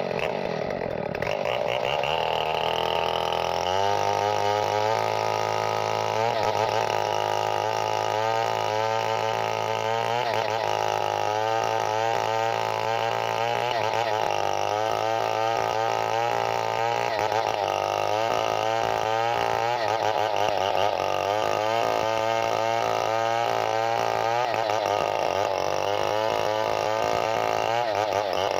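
Chainsaw engine running. Its pitch falls near the start, then holds with a continual wavering.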